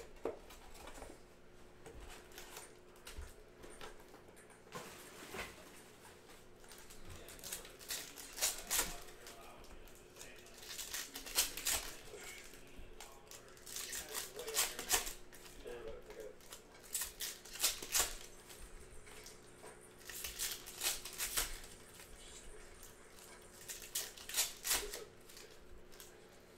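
Trading-card packs being opened and the cards handled: clusters of short, crisp rustles and clicks from pack wrappers and card stock, recurring every few seconds.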